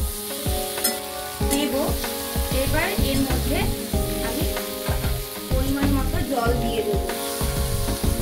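Eggplant and potato pieces sizzling in oil in a kadai, stirred and tossed with a metal spatula that scrapes and taps against the pan again and again. Near the end water is poured in.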